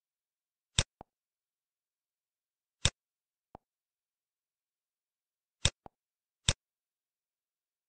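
Computer mouse button clicked four times, a few seconds apart. Each sharp click is mostly followed by a fainter click as the button is released.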